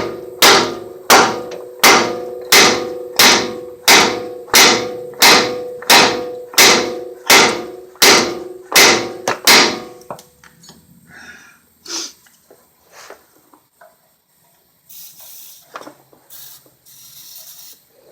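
Hammer striking steel on a truck's front suspension, about two ringing blows a second for around ten seconds, then stopping; light knocks follow, with a short hiss near the end. The hammering is an effort to free a stuck suspension part.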